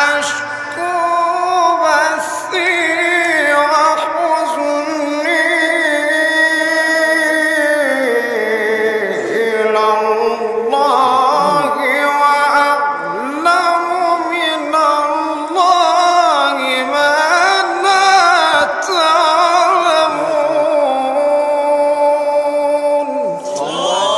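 A male Quran reciter chanting in a long, ornamented melodic line into a microphone, holding drawn-out notes that wind up and down, with brief pauses for breath.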